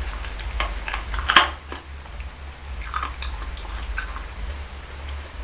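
Close-miked wet eating sounds: sticky chewing and mouth clicks on saucy boneless chicken feet, with chopsticks squelching through the thick spicy sauce in the dish. A run of short wet clicks, the loudest about a second and a half in.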